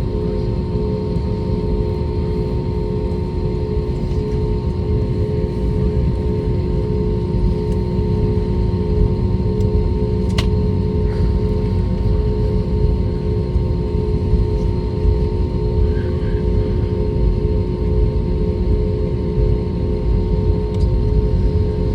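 Airbus A320neo engines and airframe heard from inside the cabin: a steady low rumble with a constant hum. A single sharp click about halfway through.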